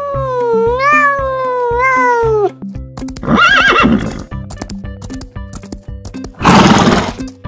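A cat's long meow, rising and falling in pitch, ends about two and a half seconds in. A horse whinnies about a second later, and a louder, rougher horse call follows near the end, over background music with a steady beat.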